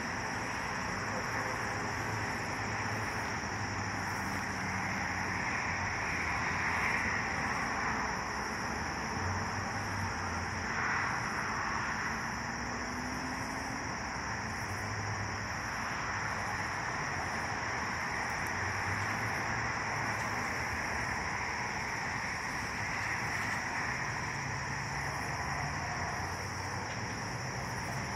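Steady low rumble of a distant Exo commuter train at the station, with a steady high-pitched hum over it.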